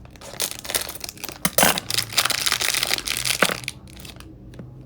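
Packaging being crinkled and torn open by hand to unwrap a Disney Doorables figure: dense crackling with sharp snaps for about three and a half seconds, then quieter handling.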